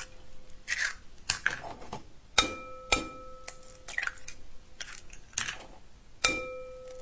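Raw eggs cracked one after another against the rim of a glass mixing bowl: sharp taps and shell cracks as the eggs are broken and pulled apart. Several taps set the bowl ringing with a clear tone, loudest about two and a half seconds in, again half a second later, and about six seconds in.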